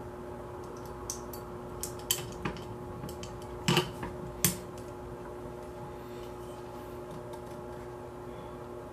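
Metal parts of an AR-15 bolt carrier group clicking and clinking as they are handled and fitted together: a handful of short sharp clicks in the first half, the two loudest near the middle, over a steady low hum.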